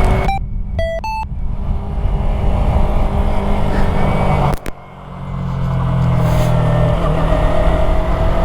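Yamaha YZF-R3's 321 cc parallel-twin engine running under way, with wind noise over the helmet microphone. Three short electronic beeps sound in the first second or so. About halfway the engine note drops off for half a second, then picks up again.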